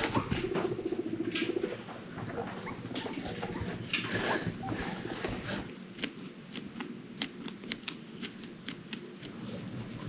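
Guinea pig sounds: a low, fast buzzing purr in the first couple of seconds, then from about six seconds a run of sharp crunches, a few a second, as a guinea pig chews dry food pellets.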